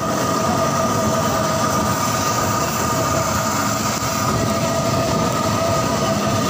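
Steady roar and sizzle of kababs deep-frying in a large karahi of hot oil over a burner, with two steady humming tones running through it.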